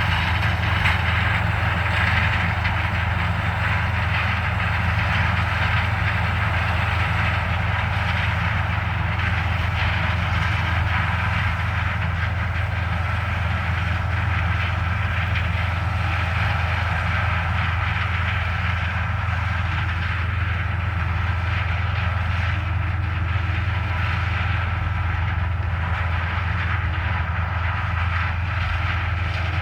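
Combine harvester and tractor-pulled grain cart running together: a constant deep engine drone with a steady mechanical hiss over it.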